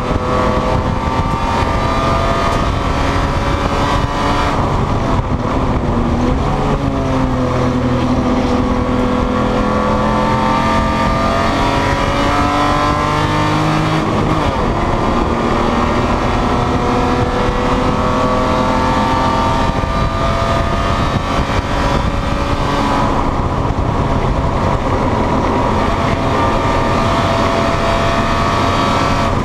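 BMW E30 race car's 2.5-litre straight-six engine at racing speed, heard from inside the cabin over wind and road noise. Its pitch climbs under acceleration and falls sharply several times as the car shifts and slows for corners.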